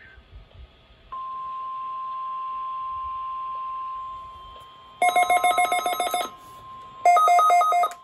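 NOAA weather radio receivers sounding for a required weekly test: a steady single-pitch alert tone starts about a second in, then the receiver's electronic alarm sounds in two bursts of rapid, warbling two-pitch beeps, about five and seven seconds in.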